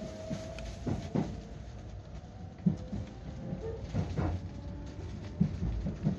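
Inside a JR West 225 series electric train moving off and gathering way: a steady low running rumble with irregular knocks as the wheels cross rail joints and points, and a faint steady whine that falls slightly in pitch.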